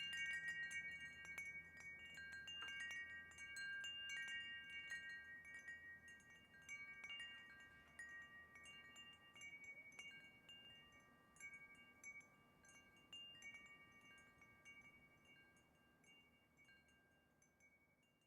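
Wind chimes tinkling, several ringing pitches struck over and over, gradually fading out to near silence by the end.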